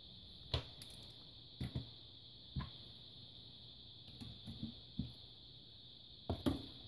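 Scattered sharp clicks and taps, about nine, with a pair close together near the end, from the keys and touchpad of a Toshiba Portege M780 laptop being operated after boot-up. A steady faint high hiss runs beneath them.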